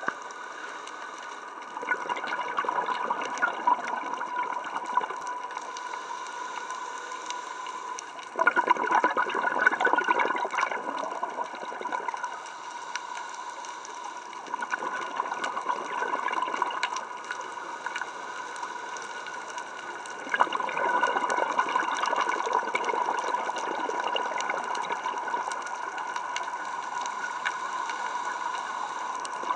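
Muffled bubbling and rushing of water heard through an underwater camera housing, swelling in surges every few seconds: a scuba diver's exhaled regulator bubbles. A thin steady tone runs underneath.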